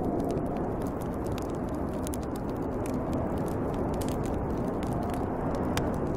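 Snowstorm wind blowing as a steady low rush with a faint wavering whistle. A wood fire crackles over it with scattered sharp pops.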